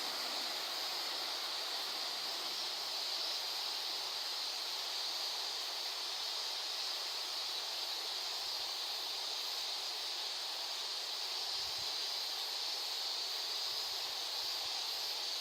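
Steady outdoor ambience: an even high hiss with no engine or voices, and a couple of faint low rumbles near the end.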